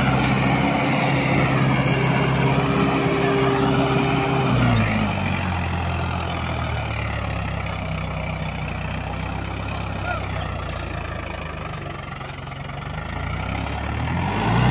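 Mahindra 475 DI XP Plus tractor's three-cylinder diesel engine working hard under load as the tractor, stuck in sand, strains to pull a loaded trailer. About four and a half seconds in the revs drop and it runs lower and quieter, then it revs back up near the end.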